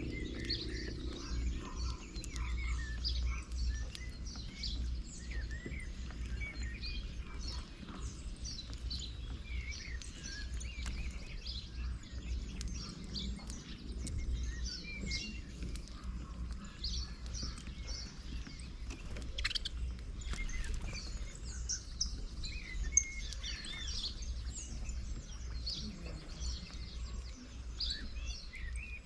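Many small birds chirping and calling in quick, overlapping short notes over a steady low rumble, with one sharp click about three-quarters of the way through.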